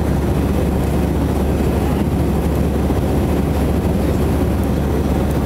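Steady engine and airflow noise of an Airbus A321 airliner in flight, heard as a constant rumble from inside the cabin.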